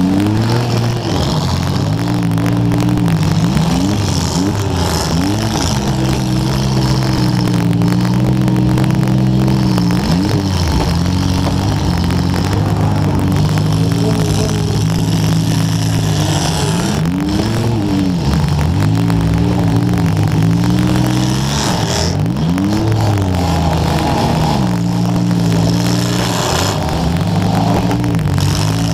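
Demolition derby car engines running and revving, the pitch rising and falling again and again, under crackling static from a wet microphone.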